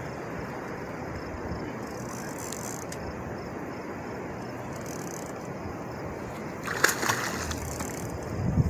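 Steady rush of river water, with brief splashing about seven seconds in and again near the end.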